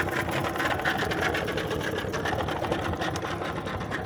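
Small boat's outboard motor running steadily close by, with a fast, even rhythm.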